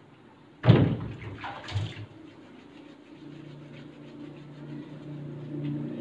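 Water sloshed and splashing over a dog during its bath, suddenly and loudly, with a second smaller splash a second later, then a low steady hum.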